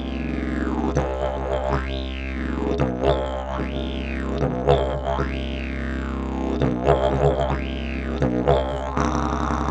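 Alien Plug travel didgeridoo played as a continuous low drone. The mouth sweeps the overtones up and down in repeated rising-and-falling glides about every second and a half, with short rhythmic accents between them.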